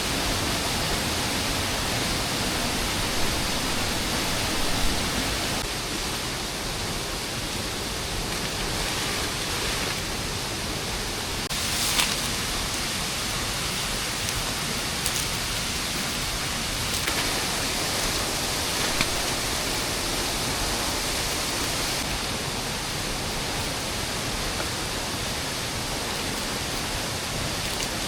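Steady rain falling, an even hiss that does not let up, with a few short sharp clicks, the clearest about twelve seconds in.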